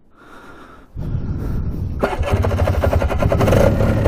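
The Polaris Big Boss 6x6's two-stroke engine comes in about a second in and runs with a fast, even pulse. It gets louder from about two seconds in as the ATV is put into low range.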